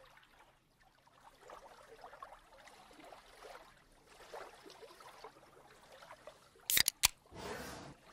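Carbonated-drink sound effects: faint fizzing and crackling, then near the end the pull tab of a drink can clicks twice and lets out a short hiss as the can is opened.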